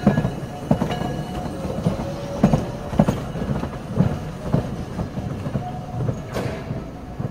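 Kagoshima City tram car moving away over rail joints and switch points: its wheels clunk in an irregular series of sharp knocks, with a thin steady squeal underneath that fades through the second half.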